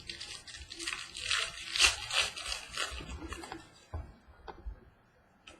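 Crackly plastic packaging crinkling and rustling as trading cards are handled and unwrapped, fading out about three and a half seconds in to a few faint ticks.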